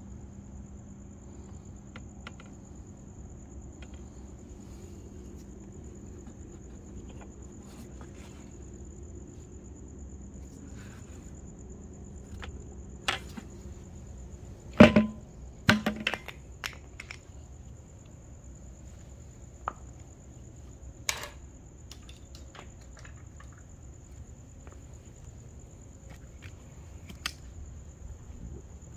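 Knocks and clatters from a plastic paint-remover pail and bucket being handled and set down on concrete: a few scattered clicks, with the two loudest knocks about halfway through. A steady high trill of crickets runs underneath.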